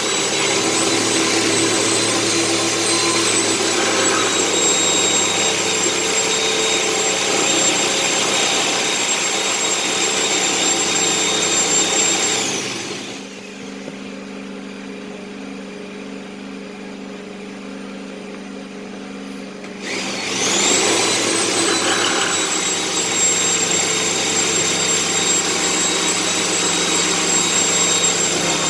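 An electric power tool's motor runs with a steady high whine, winds down a little before halfway, leaves only a lower hum for several seconds, then spins back up and runs steadily again.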